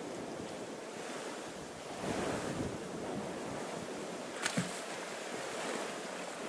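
Water washing and surf, with wind buffeting the microphone; the water swells louder about two seconds in. A short sharp click about four and a half seconds in.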